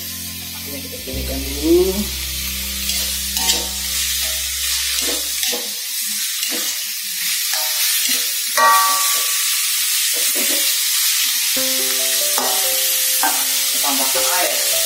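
Chopped chicken and mushrooms sizzling in oil in an aluminium wok, stirred with a metal spatula that scrapes and knocks against the pan.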